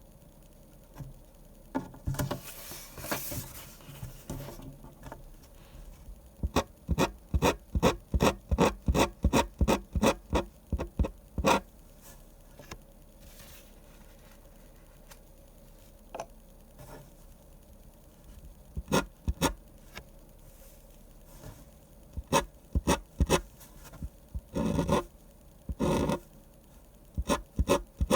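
A drawing pen scratching across paper. A longer rasping stroke comes first, then runs of quick short strokes at about four a second, with quiet pauses between the runs.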